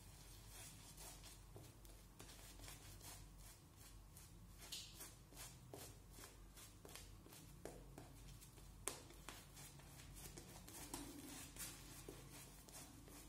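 Faint bristly swishing of a Simpson Trafalgar T3 shaving brush working shaving cream into lather on a stubbled face, in quick, irregular strokes.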